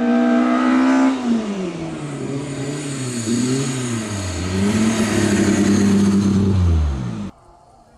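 Race car engine at high revs coming up the hill and passing close. The revs drop about a second in, then climb and fall several times as it drives past, before the sound cuts off abruptly a little after seven seconds.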